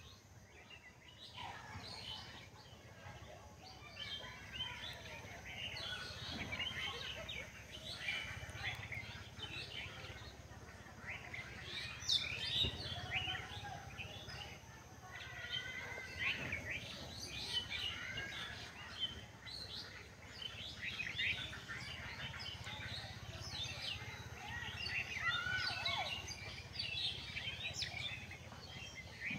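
Many birds chirping and calling at once, a busy, irregular run of short chirps with some brief rising and falling whistles.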